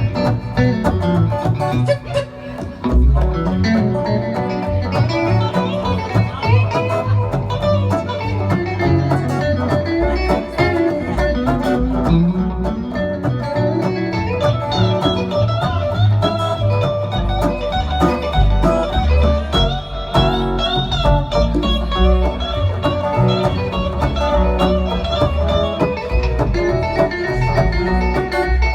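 Instrumental break of a bluegrass-style song between sung verses, played on plucked string instruments with no singing.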